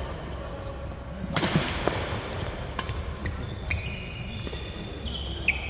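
Badminton rally: rackets striking the shuttlecock with sharp smacks, the strongest about a second and a half in, echoing in a large hall. Near the end come short high squeaks of sneakers on the wooden court floor.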